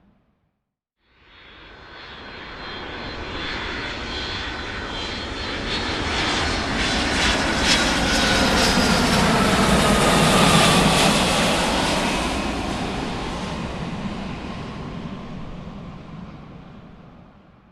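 Large aircraft flying by. The engine noise fades in about a second in, swells to a peak near the middle and then dies away. A whine drops in pitch as the aircraft passes.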